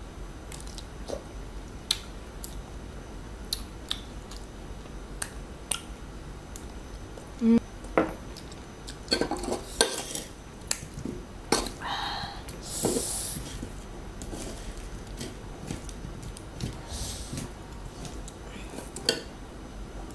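Close-miked eating sounds: a metal spoon clinking and scraping against a plate, with scattered small clicks and wet mouth sounds of chewing soft fruit in chili sauce. A few louder clinks stand out around the middle.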